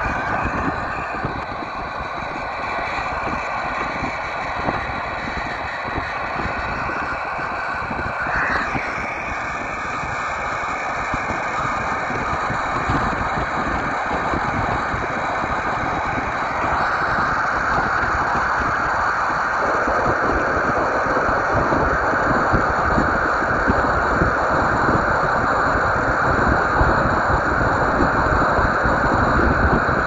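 Strong gusty wind buffeting the microphone, with a steady hiss that grows louder from about halfway through.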